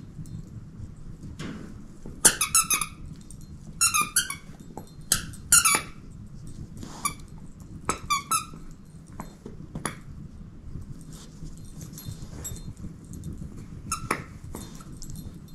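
Squeaker inside a dog's fabric chew toy squeaking as she bites down on it: short runs of high squeaks, several in the first nine seconds and one more near the end.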